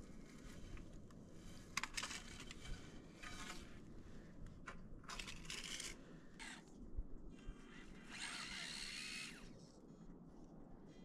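Small brushed electric motor of a Losi Mini-B 1/16 RC buggy whining in several short bursts, the longest about eight seconds in, as the buggy sits stuck in snow.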